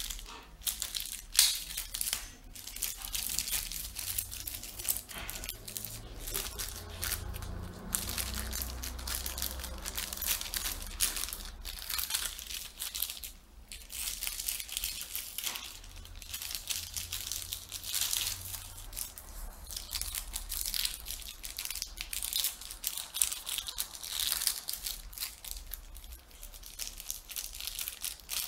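Clear plastic packaging bags crinkling and crackling in the hands in irregular bursts while small parts are unwrapped and handled.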